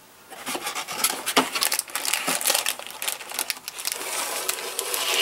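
Plastic bag crinkling and plastic model-kit sprues clicking against each other and the cardboard box as the kit's contents are slid out, starting about half a second in with many small clicks.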